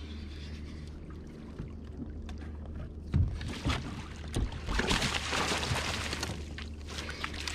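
A hooked bowfin splashing and thrashing at the surface beside a kayak, starting about three seconds in and loudest around five seconds, with a few sharp knocks. Under it runs a steady low rumble.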